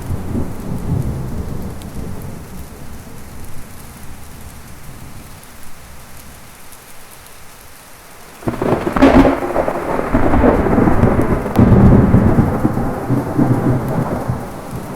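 Thunderstorm: steady rain with thunder. A low rumble fades over the first few seconds, then a sudden thunderclap about eight and a half seconds in rolls on as a long rumble, swelling again about twelve seconds in.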